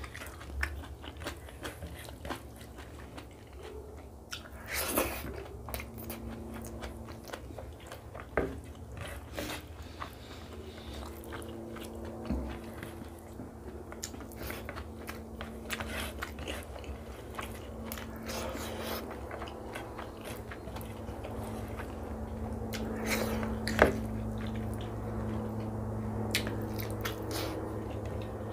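Close-miked eating sounds of rice and egg curry eaten by hand: chewing and mouth clicks, with fingers mixing rice on a plate. A steady low hum runs underneath, and a couple of sharper clicks stand out, about five seconds in and near the end.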